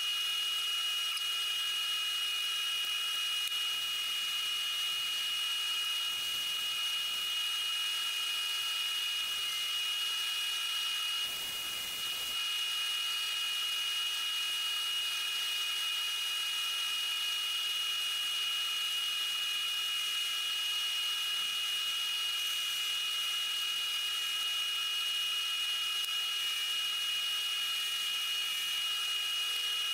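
Wood lathe running at steady speed with a high-pitched motor whine, briefly interrupted about eleven seconds in.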